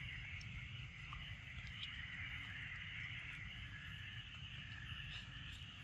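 Faint outdoor ambience: a steady high-pitched chorus, with a low rumble underneath and a few soft ticks.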